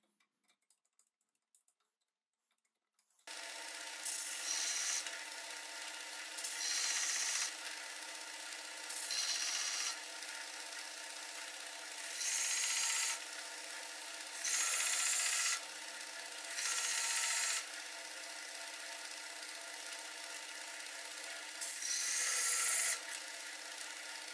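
Bench belt sander switching on about three seconds in and running steadily. A small metal part is pressed against the belt seven times, about a second each time, each contact giving a louder grinding hiss over the motor's hum.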